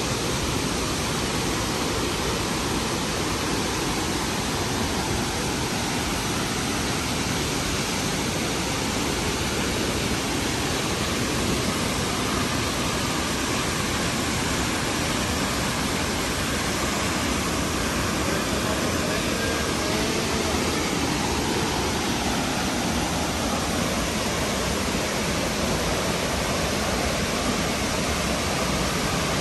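Burney Falls, a 129-foot waterfall, pouring steadily: an even, dense rush of falling water.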